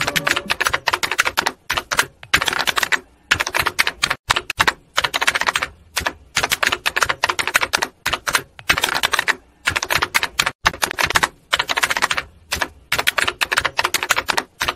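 Dense, rapid crackling and clicking in irregular bursts with short gaps, and no music to be heard under it. It is heavy noise from a badly degraded old film soundtrack.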